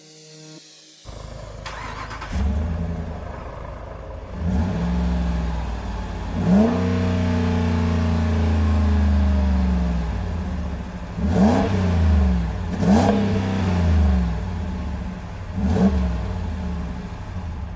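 A 2021 Ram 1500's 5.7-litre V8 cranks and starts about a second in, settles to idle, then is revved in about five blips, one held high for a few seconds before falling back, heard at the exhaust tailpipe.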